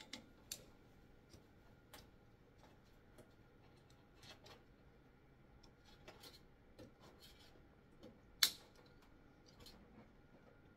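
Small screwdriver clicking and scraping against a plastic tanning-bed lamp holder as it is pried open: a few faint ticks, with one sharper click about eight seconds in.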